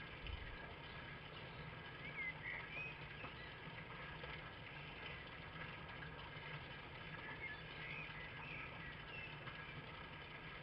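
Faint steady hiss and electrical hum from the recording camera, with a few faint, short high chirps about two seconds in and again near eight seconds.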